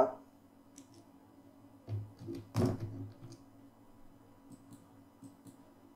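A few computer-keyboard keystrokes, separate sharp clicks with the heaviest about two and a half seconds in, over a faint low hum.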